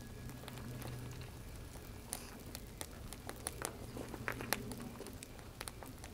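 Split firewood burning in a campfire fire pit, crackling with scattered sharp pops and snaps, over a faint low hum.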